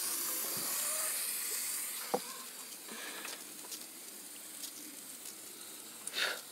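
Water hissing out of a black rubber soaker hose, loud for the first couple of seconds and then fading. A sharp click about two seconds in and a short rustle near the end.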